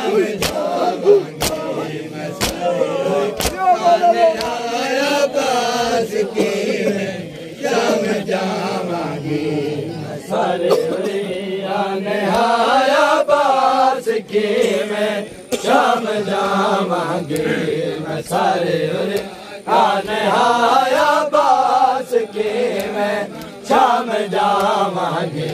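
A group of men chanting a noha (Shia mourning lament) together, their voices rising and falling in a slow melody. For the first few seconds, sharp slaps about once a second keep the beat: matam, the chest-beating that goes with the noha.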